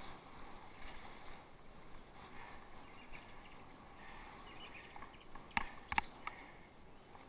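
Off-road bicycle ride: faint, steady rolling noise, with three sharp clicks or knocks from the bike between about five and a half and six seconds in.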